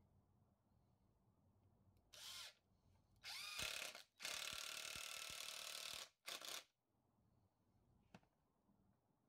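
A Ridgid cordless impact driver driving a 4-inch Timberlok screw into wood. It runs in bursts: a short one, then a longer run of about three seconds with a brief stop, then a last short burst before it stops.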